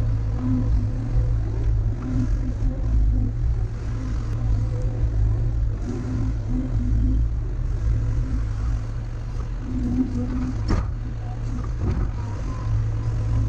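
Engine of heavy digging equipment running steadily under load, a constant low drone.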